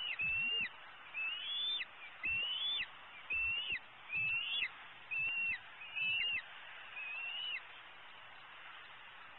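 Young bald eagle calling: a series of about eight high, drawn-out whistled calls, roughly one a second, each ending in a sharp drop in pitch, stopping shortly before the end.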